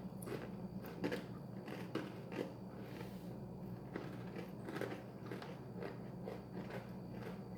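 Two people biting and chewing crispy homemade microwave potato chips: faint, irregular crunches and crackles, a few per second.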